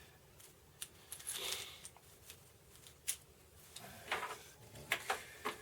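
Power-supply cables and their plastic connectors being handled and sorted by hand: scattered light clicks, a short rustle about a second and a half in, and a cluster of clicks and rustling near the end.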